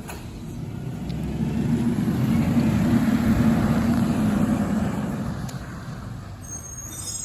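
Garbage truck driving past on a wet street: its engine drone and tyre hiss swell to a peak about three seconds in and then fade. A brief high squeal comes near the end.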